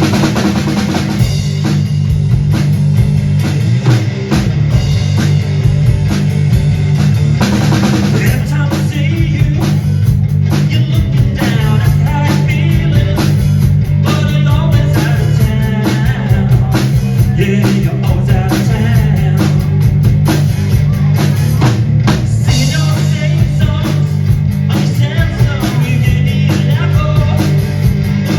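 Live rock music from a two-piece band: a guitar and a drum kit playing loudly and steadily throughout.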